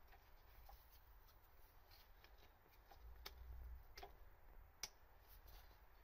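Near silence, with a few faint clicks and taps from hands working on parts in an engine bay; the sharpest click comes a little before the end.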